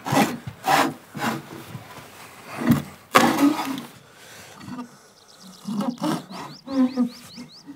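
Hand auger with a wooden T-handle and a conical bit being turned into a timber trough to widen a drain hole: the wood creaks and grinds in uneven strokes as the bit cuts, with a run of short rising squeaks in the second half.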